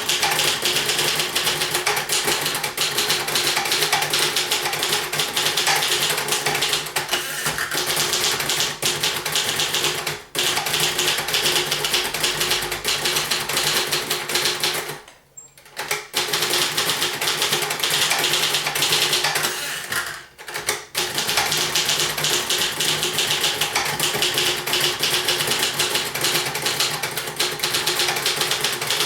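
1966 Royal Safari manual portable typewriter being typed on: a fast, steady run of keystroke clacks. The typing breaks off briefly three times, the longest pause lasting about a second midway.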